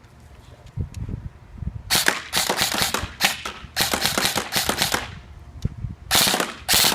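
Krytac LVOA airsoft electric rifle (AEG) firing BBs: after a quiet start, a quick string of sharp shots from about two seconds in, a short pause, then a tighter burst near the end.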